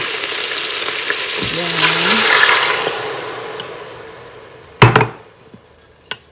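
Pork sizzling in a hot Instant Pot insert as a wooden spoon stirs it. The sizzle swells as the dissolved caldereta sauce goes in, then dies away over a couple of seconds as the liquid cools the pot. About five seconds in comes a sharp knock, the loudest sound, with a lighter one just after.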